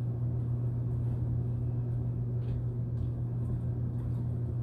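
A steady low hum runs throughout, with a few faint light clicks about halfway through and again near the end as a small plastic doll bracelet is handled and fitted.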